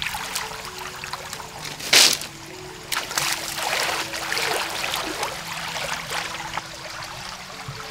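Water sloshing and splashing as a person wades through a muddy canal, with one louder splash about two seconds in.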